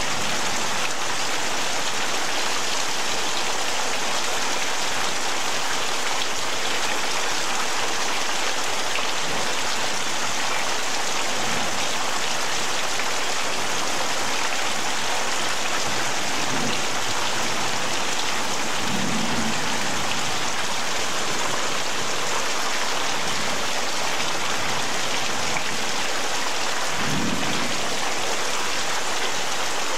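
Heavy rain pouring steadily in a dense, even hiss, with a few brief low rumbles rising through it.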